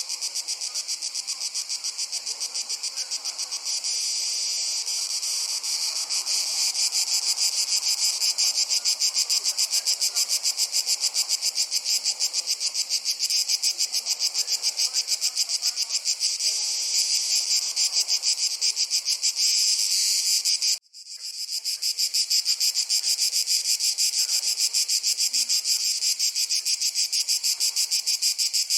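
A chorus of crickets chirping in a rapid, even pulse. About two-thirds of the way through, it cuts out briefly and fades back in.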